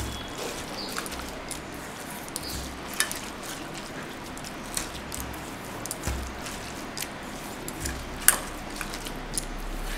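Hand kneading grated green mango with kasundi mustard sauce in a stainless steel bowl: soft, wet squishing and rustling, with a few light clicks, the loudest a little past eight seconds in.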